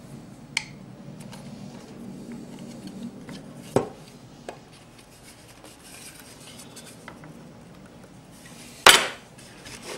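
Wooden boards being handled and pushed together on dowels, with a few sharp wood-on-wood knocks about half a second in, near the middle, and the loudest one near the end.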